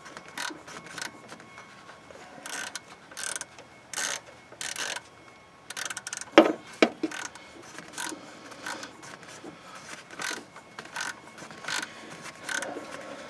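A 1/4-inch socket ratchet clicking in short, uneven strokes as a 5/16 mounting bolt of an idle air control valve is run in by feel, not yet snug; a sharper metal knock about six seconds in.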